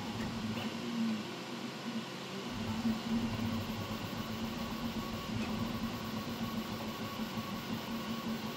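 QIDI Q2 CoreXY 3D printer printing: its stepper motors hum and whine, shifting in pitch as the printhead moves back and forth, over a steady hiss of fans.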